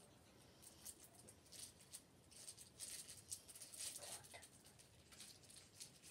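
Faint, irregular crinkling and crackling of a chocolate wrapper being picked at and unwrapped by fingers.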